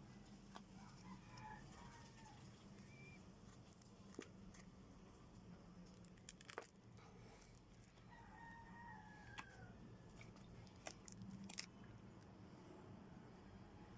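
Near silence: low room hum with a few faint clicks, and faint distant calls, likely birds, about a second in and again past the middle.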